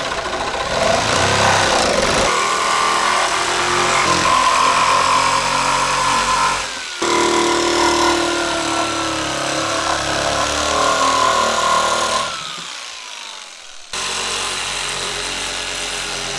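Handheld corded power saw running and cutting into a fiberglass boat console, with a steady high motor pitch. About twelve seconds in, the motor winds down, then it runs steadily again.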